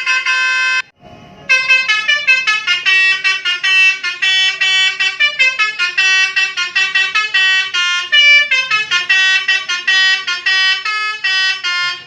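Basuri telolet multi-tone horn sounding: a loud held chord that cuts off about a second in, then after a short pause a fast tune of horn notes, changing note several times a second, that runs until just before the end.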